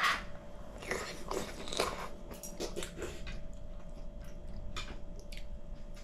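A person chewing crunchy food with the mouth close to the microphone: irregular crisp bites and crunches, over a faint steady hum.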